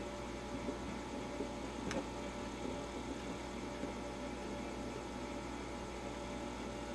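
Steady low mains hum from powered-up electronics on the test bench, with a faint click about two seconds in.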